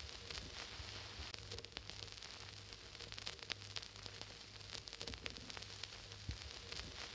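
Faint steady hiss with scattered crackles and clicks over a low hum.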